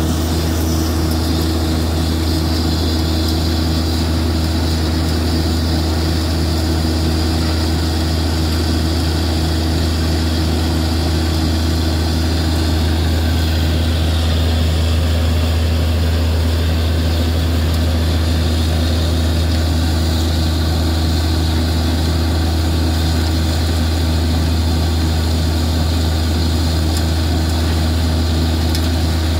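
Borewell drilling rig running steadily while drilling, with mud and water flushing up out of the bore: an unbroken heavy engine drone with a deep hum and a hiss above it.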